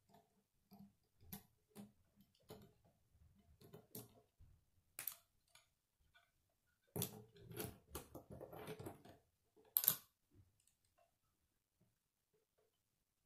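K'nex plastic rods and connectors clicking and clattering as they are handled and fitted together: scattered sharp clicks, a denser run of clatter about seven to nine seconds in, and the loudest click near the ten-second mark.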